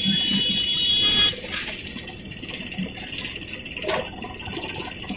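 Belt-driven rag-shredding machine running as it tears old cloth into mattress filling: a steady hissing rush from the drum and belts, with a high whine over it for about the first second that then stops, and a single knock near the end.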